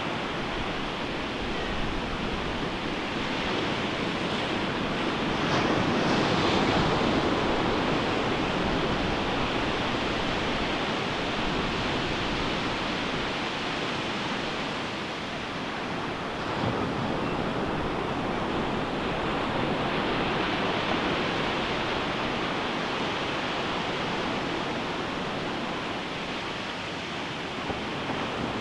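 Ocean surf washing onto a beach: a steady rush of breaking waves that swells louder about five to seven seconds in and again around the middle.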